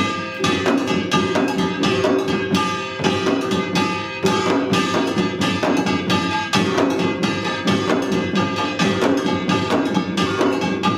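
Samul nori ensemble playing Utdari: janggu hourglass drums and buk barrel drums beating a dense, steady rhythm under the bright ringing of small kkwaenggwari gongs.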